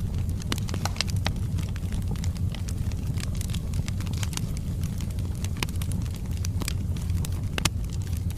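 Wood fire burning in a fireplace: a steady low roar of flames with frequent irregular crackles and pops from the burning logs, one snap about three quarters of the way through louder than the rest.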